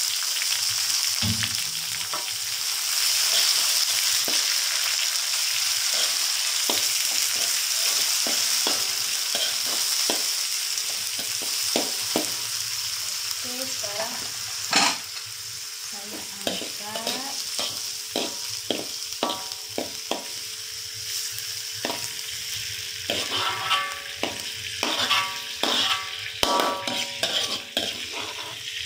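Oil sizzling in a metal wok as shallots, soup celery and spring onion are stir-fried, with a metal spoon scraping and knocking against the pan. The sizzle is strongest in the first half and eases off, while the spoon knocks come quicker and louder near the end.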